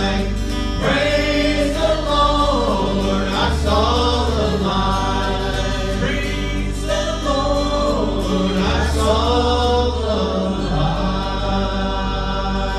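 Gospel vocal group of three men and a woman singing into microphones over instrumental accompaniment with long sustained bass notes. These are the song's last lines: the music stops just after.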